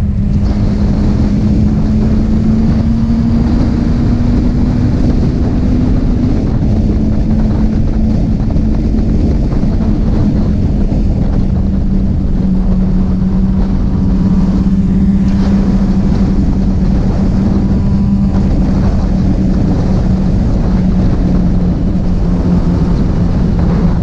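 Honda CBR600RR inline-four engine running at steady highway cruising speed, heard from on the bike, its note rising slightly over the first six seconds, then dropping a little and holding steady. Heavy wind and road rush on the microphone under the engine.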